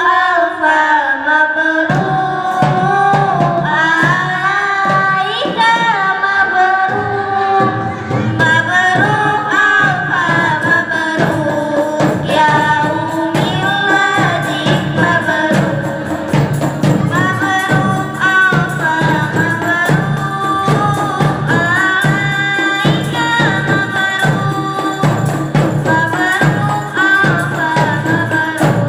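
Girls singing a song into microphones, accompanied by rebana frame drums beating a steady rhythm that comes in about two seconds in.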